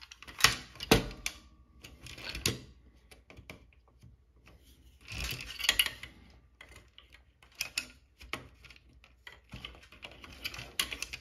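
Plastic clicks, knocks and scraping from a 1981 Standard Electric TLF 300 telephone's base and circuit board being handled and worked loose with a screwdriver. The clicks come irregularly, with a longer scrape about five seconds in.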